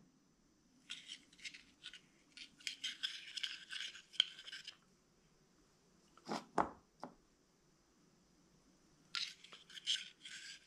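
A small brush working grease out of a can and scrubbing it onto the metal tube of a VW Beetle pedal cluster: two runs of short, scratchy brush strokes. A single dull knock comes between them, about six and a half seconds in.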